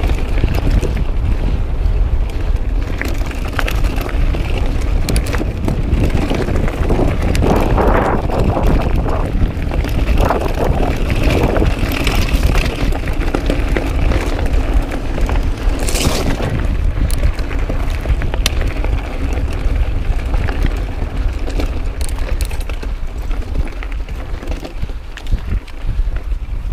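Mountain bike ridden over a rocky dirt trail: steady wind buffeting on the microphone, with tyres on loose gravel and the bike rattling in many small clicks over the bumps.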